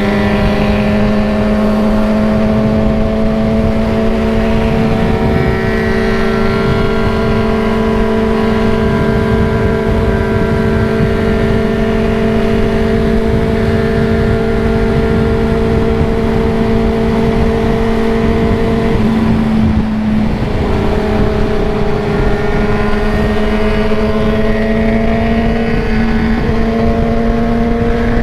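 Yamaha XJ6's inline-four engine running steadily at cruising speed, its note slowly climbing. About twenty seconds in it dips briefly, as on a gear change or easing the throttle, then picks up again. Wind rushes over the microphone throughout.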